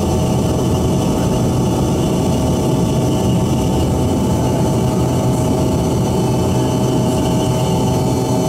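Embraer ERJ-145's rear-mounted Rolls-Royce AE 3007 turbofans at takeoff thrust just after liftoff, heard from inside the cabin: a loud, steady buzzing drone with several steady tones over a low rumble.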